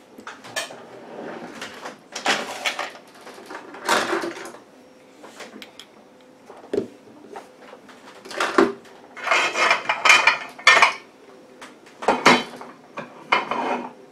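Irregular bursts of metallic clinking and scraping as an HP 909A coaxial 50 ohm terminator is handled and worked on by hand to take it apart. The busiest stretch of clinking comes about two-thirds of the way in.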